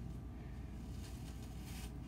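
Hairbrush stroking through hair: a faint soft swish, most clearly once near the end, over a steady low hum.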